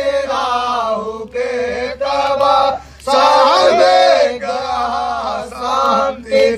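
Male devotional chanting, sung in held, pitched phrases that pause briefly about every second and a half.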